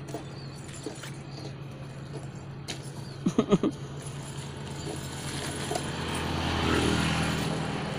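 Hands working a tangled cast net, with soft rustling and light clinking of its chain weights as suckermouth catfish are picked out. An engine hum swells to a peak near the end as a vehicle passes. A quick run of three or four short, loud pitched cries breaks in about halfway through.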